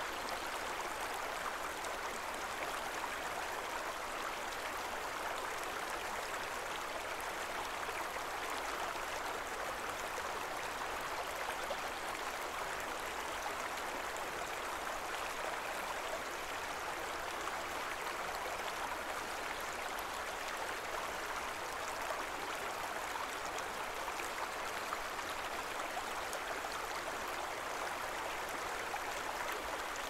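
River water flowing, a steady even sound with no pauses or changes.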